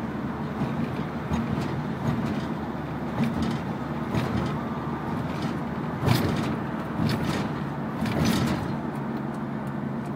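Steady engine and tyre noise heard inside a car driving on an expressway, with a few brief louder swells, the strongest about six seconds in.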